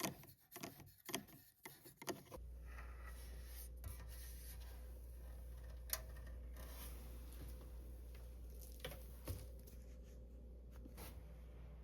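Light clicks and taps of small objects being handled, close together for the first two seconds, then a few scattered single ticks. A low steady hum comes in about two seconds in.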